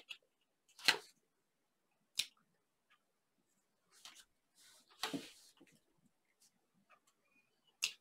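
Tarot cards handled and laid on a wooden table: a few short, sharp card snaps and a brief slide, with quiet gaps between.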